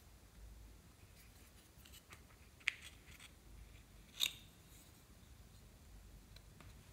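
Small plastic eyeshadow compact being handled and its lid clicked open: two sharp plastic clicks about a second and a half apart, the second the louder, with a few faint ticks around them.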